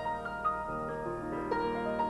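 Piano playing the introduction to a worship song: single struck notes over held chords.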